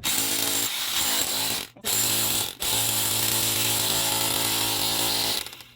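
Electric hammer drill running in hammer mode, chiselling into concrete, with a steady pitched motor whine over a hammering rattle; it stops briefly twice, around one and a half and two and a half seconds in, then runs again until it cuts off just before the end.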